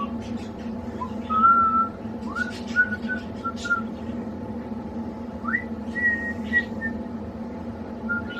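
A person whistling to a pet budgie: several short, clear held notes, each entered with a quick upward slide, the last and highest about five and a half seconds in. Faint short budgie chirps sound between the whistles over a steady low hum.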